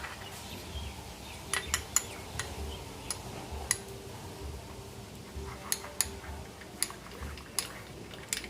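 A metal spoon clinking against a bowl while mixing, with about a dozen irregular sharp clinks.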